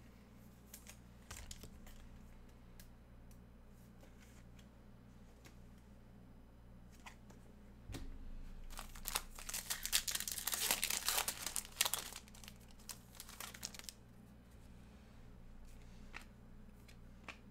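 A trading-card pack wrapper being torn open and crinkled: a dense stretch of crackling from about nine to fourteen seconds in, with a few light clicks before and after.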